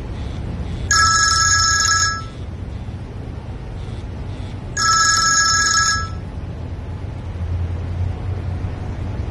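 A telephone ringing: two rings of about a second each, about four seconds apart, each a steady high multi-tone ring, over a low steady hum.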